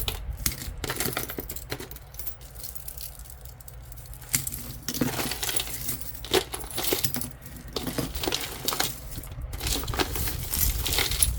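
Loose jewelry clinking and jangling as pieces are handled and pulled out of a bucket, metal and beads knocking together in runs of small clicks, sparser for a couple of seconds and then busy again.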